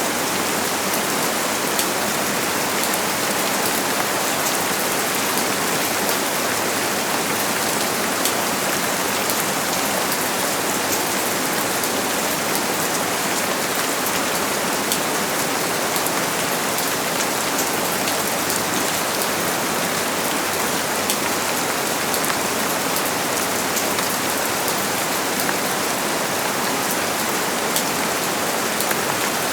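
Steady rain falling, a dense even hiss with many small drop ticks on a hard surface.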